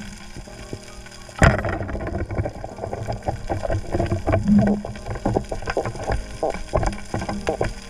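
Underwater knocks and clicks of a spear and speargun against reef rock: one sharp knock about a second and a half in, then a run of irregular clicks and taps, over a steady low hum.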